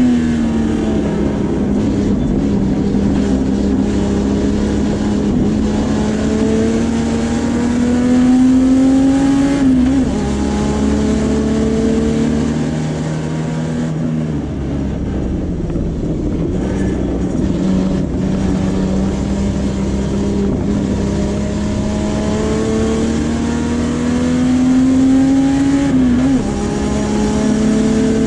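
Puma GTB race car's front-mounted Chevrolet straight-six running hard, heard from inside the cockpit. Its pitch climbs slowly as it pulls and drops sharply at an upshift about ten seconds in and again near the end, with a slightly quieter stretch in between.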